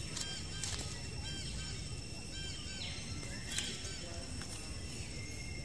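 Outdoor forest-floor ambience: short high chirps repeated in quick groups of three or four, over steady high-pitched insect-like tones, with two sharp snaps, about a second in and again near the middle.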